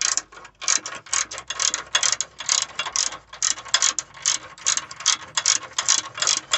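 Hand ratchet clicking rapidly, about three or four clicks a second, as it runs down and tightens the mounting nut on a newly installed air suspension compressor.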